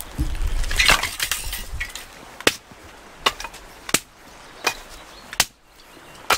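Firewood being chopped: a rustle of handling, then a run of sharp wooden knocks, about one every three-quarters of a second.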